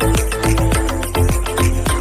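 Background music with a steady beat and heavy bass, electronic in character.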